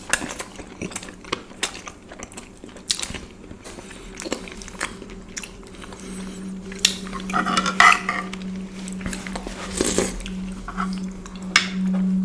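Spoons clinking against plates and bowls, with chewing and biting of soft Indian sweets, in many short sharp clicks. A low steady hum sets in about halfway through.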